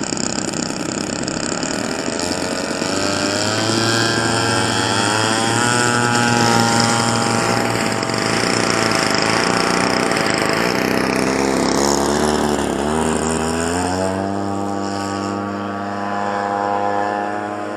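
Several quarter-scale RC model airplanes' small two-stroke gasoline engines (26cc, one Zenoah G38) running together at high throttle as the planes take off in turn and climb away. Their pitches overlap and waver, with a dip and rise in pitch about twelve seconds in.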